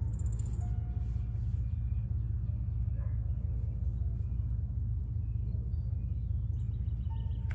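Wind rumbling on the microphone, a steady low buffeting, with a few faint high chirps.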